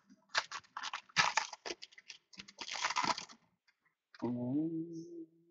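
Foil wrapper of a trading-card pack crinkling and tearing open, a quick run of crackles lasting about three seconds. About a second later a man gives one long, drawn-out hum.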